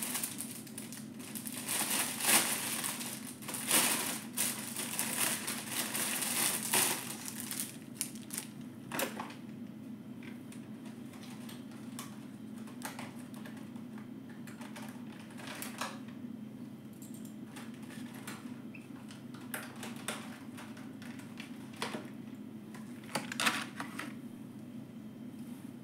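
Small packaging crinkling and rustling as it is handled and opened, with bursts of small sharp clicks and ticks. The rustle is densest in the first several seconds, then thins to scattered clicks.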